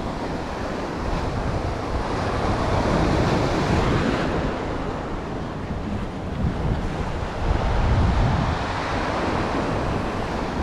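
Ocean surf washing and breaking over a rocky shoreline, in continuous swells, with wind buffeting the microphone.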